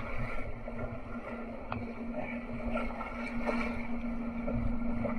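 Rushing and splashing whitewater around a slalom canoe running an artificial whitewater channel, heard through a boat-mounted camera wet with spray. A steady low hum sits under the water noise.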